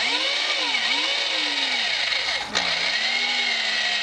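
Power drill running under load, driving a Time-Sert drill bit that cuts out a stripped head bolt hole in the engine block. Its pitch rises and falls as the speed changes, dips briefly about two and a half seconds in, then runs steadier.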